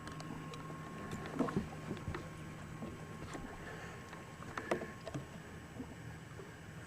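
Quiet sounds in a small fishing boat: a few scattered light knocks and clicks, the sharpest about a second and a half in and again near five seconds, over a steady faint hum.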